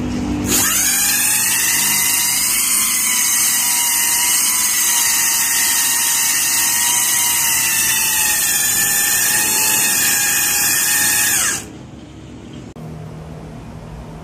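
Brushless belt-drive hub motor on a home-built 72 V electric scooter whining at high speed while its rear tyre spins against concrete, with a loud rubbing hiss from the tyre. It holds steady, rising slightly in pitch, then cuts off suddenly about eleven seconds in.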